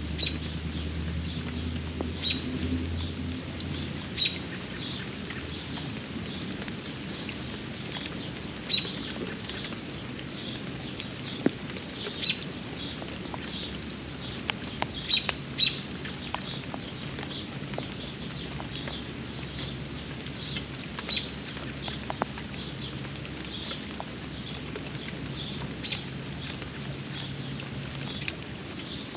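Steady rain with a bird chirping over it, short high chirps about twice a second. Sharper ticks come every few seconds and stand out as the loudest sounds.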